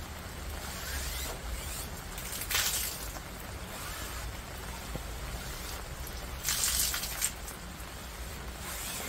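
Heavy rain falling steadily, with two short louder hissing bursts, one about two and a half seconds in and a longer one around seven seconds in.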